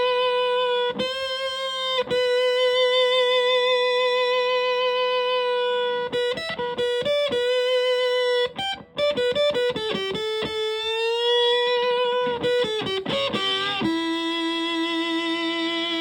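Electric guitar with humbucker pickups through a Tone Bender MKII fuzz pedal into a Fender Twin Reverb-style amp, playing a single-note lead. Long, sustaining fuzz notes with vibrato are broken by quick runs of notes and a string bend, ending on a held lower note.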